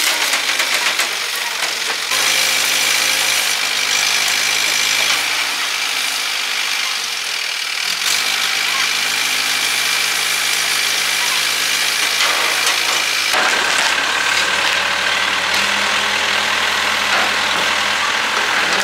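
Heavy diesel engine running steadily at idle. Its note jumps abruptly to a new steady pitch a few times.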